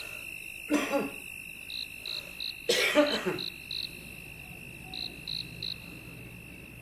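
A person coughing twice, once about a second in and again, longer, near three seconds, over insects chirping in short pulses about three times a second with a steady high whine.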